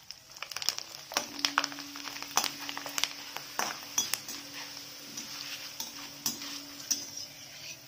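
Grated potato deep-frying in hot oil in a kadhai, with a steady sizzle. A metal perforated skimmer stirs it and clinks sharply against the pan several times.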